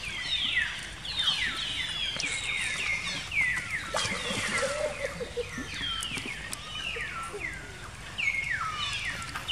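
Young macaques squealing: a rapid string of short, high calls, each dropping in pitch, overlapping one another without a break.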